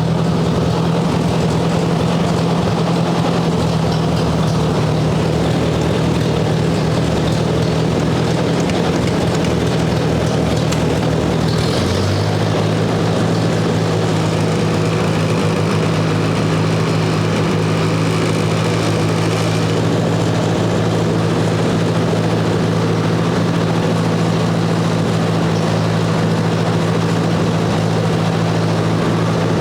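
1958 Ford 851 tractor's four-cylinder engine running steadily. Its note shifts about twelve seconds in, then runs on evenly.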